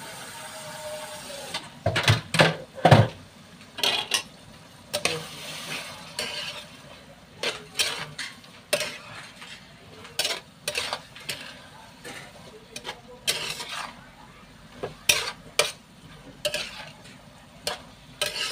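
Spatula scraping and knocking against a frying pan in irregular strokes as bitter gourd and egg are stir-fried, with a faint sizzle underneath.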